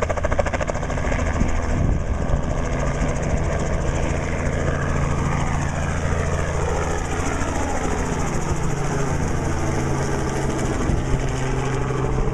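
Small two-bladed helicopter running as it climbs out and flies overhead: a steady low rotor and engine hum, with a sweeping, shifting tone as it passes overhead.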